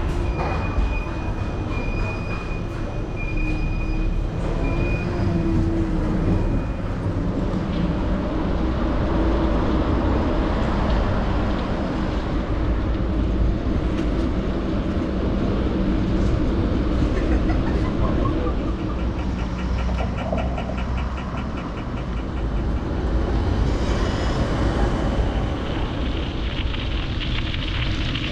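Helsinki metro train running, heard from on board: a steady low rumble with a thin high whine in the first few seconds. About two-thirds through a whine rises in pitch, followed by a couple of seconds of rapid high ticking.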